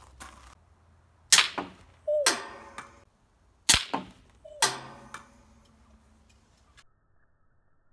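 Pistol crossbow shots striking an iPod Touch: sharp cracks in two similar pairs, the second crack of each pair with a short falling ring.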